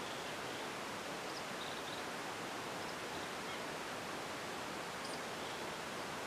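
Steady, even hiss of open-air ambience, with a few faint, short high chirps from birds scattered through it.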